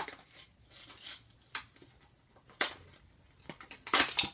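Plastic and cardboard toy packaging crinkling and crackling as it is peeled off by hand, in short uneven bursts, with a sharp snap about two and a half seconds in and the loudest crackle near the end.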